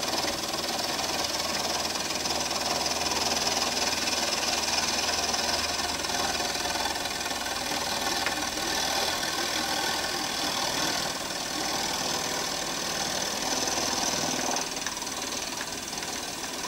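Milling machine running with its end mill taking a final one-thou skim cut across the face of a Stuart S50 cylinder casting, a steady machining hiss. The cut eases about two-thirds of the way through and quietens further near the end.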